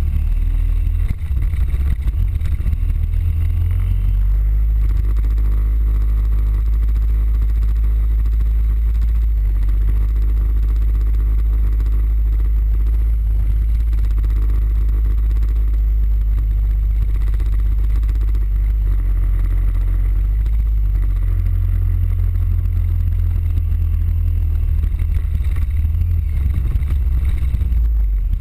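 Suzuki Burgman 650 parallel-twin scooter being ridden, a heavy steady low rumble with the engine note underneath. The deepest rumble is heavier in the first few seconds and the last several seconds.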